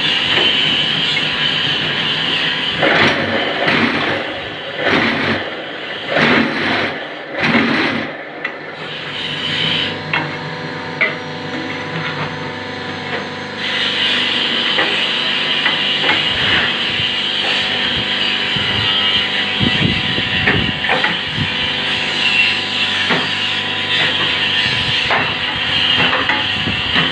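Hydraulic paving-block press machine running: a steady mechanical hum and hiss with repeated knocks and clanks, busiest in the first several seconds.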